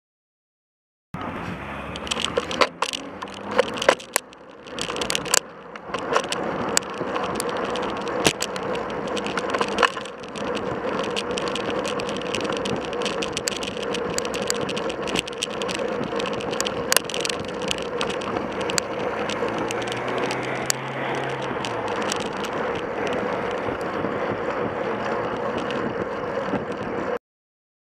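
Riding noise picked up by a bicycle-mounted camera: steady wind and road noise with frequent sharp clicks and rattles as the bike goes over the road surface. It starts about a second in and cuts off suddenly near the end.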